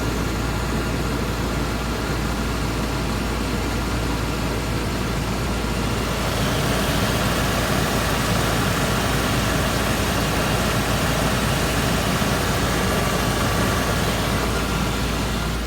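2004 Land Rover Discovery's engine running at idle, with its power steering pump making an odd sound: a faint steady whine over the engine noise. It grows a little louder about six seconds in and eases near the end.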